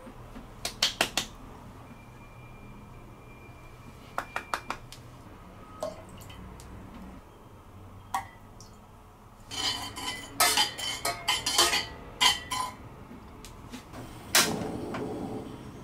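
Small glass bowls clinking against a stainless steel saucepan as seasonings are tipped into the stock: a few quick clinks about a second in and again about four seconds in, then a longer run of louder clattering. Near the end a sharp click followed by a brief rush, as the portable gas stove's knob is turned.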